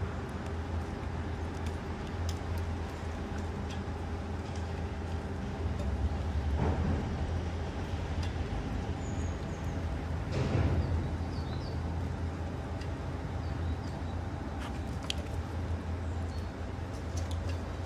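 Steady low mechanical hum, swelling briefly about six and a half and again about ten and a half seconds in, with a few faint high chirps near the middle.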